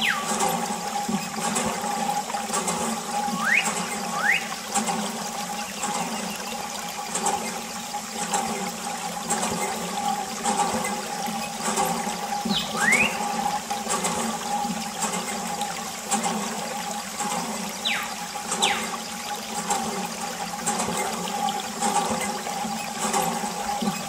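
A thin stream of water from a small tube splashing steadily onto plastic toy vehicles and wet sand, over a steady hum, with a few short high squeaks.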